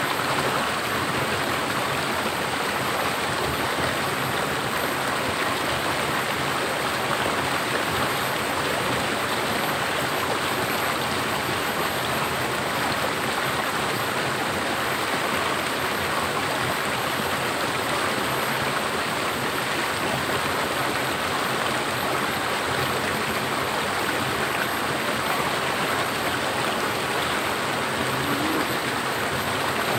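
Creek water rushing over a small waterfall: a steady, even rush of water.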